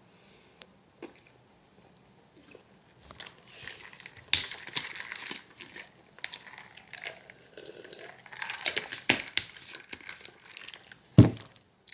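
Handling noises from a lidded drink tumbler being picked up and worked in the hands: irregular clicks, clatter and crinkling. About eleven seconds in comes a single loud knock as it is set down on the table.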